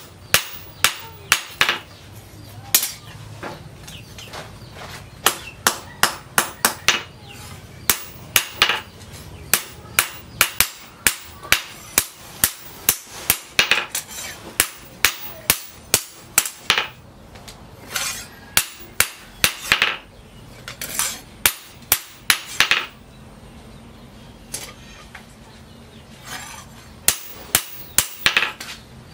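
Hand hammer forging a leaf-spring steel knife blade on a steel post anvil: sharp metallic blows in irregular runs of about two to three a second, with a break of a few seconds near the end.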